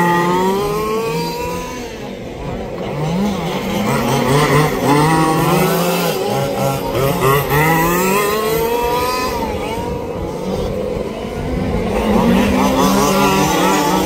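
Several 1/5-scale RC racing trucks' small two-stroke petrol engines buzzing as they lap the circuit. The revs rise and fall over and over as the trucks brake for corners and accelerate out of them.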